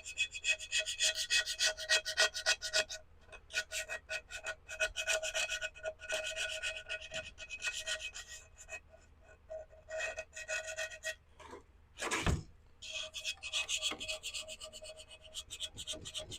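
A scraping tool worked quickly back and forth over a ceramic pot's surface to scrape off dried paint. The strokes come about five a second with a squeal. They pause about eleven seconds in, a single knock sounds, and then the scraping resumes.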